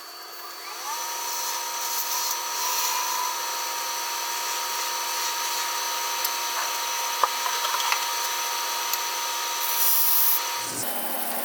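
Wood lathe motor spinning up to speed about a second in, then running with a steady whine while a gouge or abrasive works a spinning mahogany spindle blank, with scattered light clicks. Near the end the whine stops and a lower rumble takes over.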